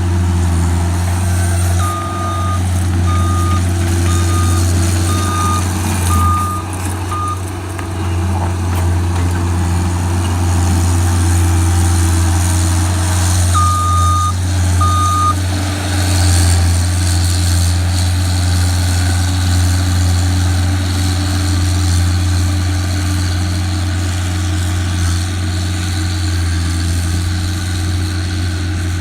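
John Deere skid steer's diesel engine running steadily, with its backup alarm beeping about once a second while it reverses: six beeps early on and two more about halfway through.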